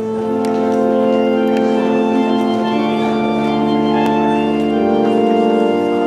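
Organ playing slow, sustained chords that shift to new chords a few times.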